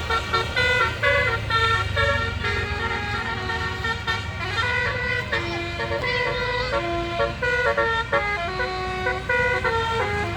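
A bus's basuri melody horn playing a tune, a quick run of short pitched notes one after another, over the bus's engine running with a steady low hum.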